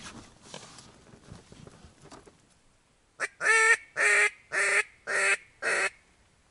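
A series of six loud, nasal duck quacks about half a second apart, the first one short. Before them come soft rustling and shuffling noises.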